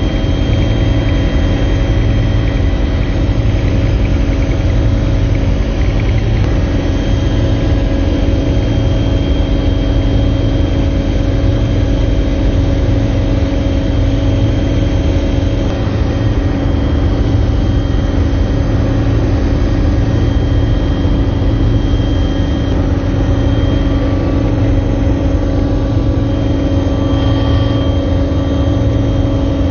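Helicopter engine and rotor noise heard inside the cabin in flight: a loud, steady drone with a deep rumble and a steady high whine.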